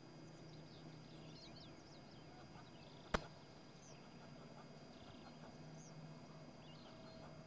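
Faint chirping of small birds over quiet rural ambience, with a low hum underneath. One sharp click about three seconds in is the loudest sound.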